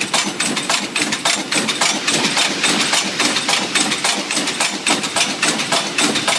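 Automatic forging machine running, its strokes making a steady, rapid clatter of metal strikes several times a second.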